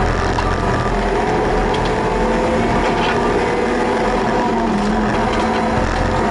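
Honda Civic track car's engine running hard as it is driven around a course, the revs shifting a little, heard inside the stripped, caged cabin along with road and wind noise.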